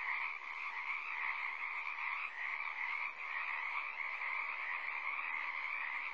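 Chorus of many frogs calling at once, a dense, steady, unbroken din in swamp ambience.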